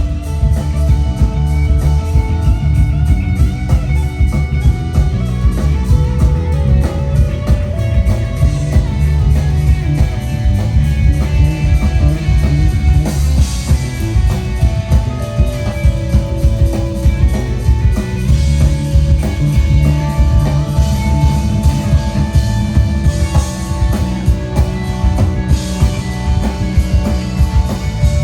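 Live rock band playing an instrumental groove: guitar lines over bass guitar and a drum kit keeping a steady beat.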